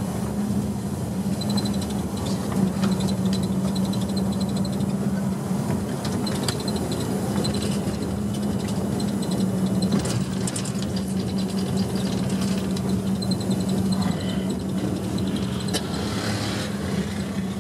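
Steady running noise of a vehicle: a constant low hum under an even rumble.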